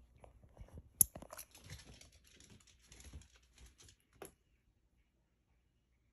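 Light scattered clicks and taps of a dog's claws and leash on a wooden floor, with one sharp click about a second in. The sound cuts to silence a little after four seconds.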